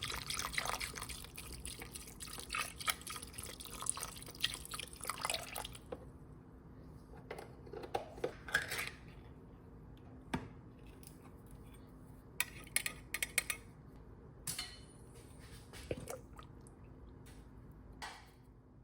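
Chicken broth being poured into a crock pot, a continuous splashing pour for about six seconds. After that come scattered drips and light taps.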